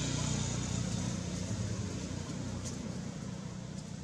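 A motor vehicle engine running steadily in the background, a low hum that slowly fades.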